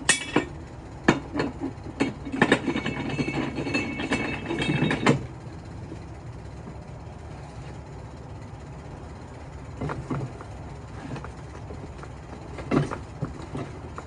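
Metallic knocks, then a stretch of dense, ringing metal rattling lasting a couple of seconds, like tools or metal parts being handled. A few more knocks come near the end.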